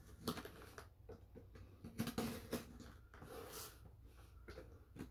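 Box cutter slitting packing tape on a cardboard box: faint scratchy cutting with scattered small taps and knocks on the cardboard.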